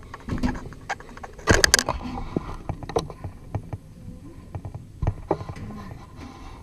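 Footsteps on metal checker-plate stair treads going down a scaffolding tower: irregular clanks and knocks, the loudest cluster about a second and a half in.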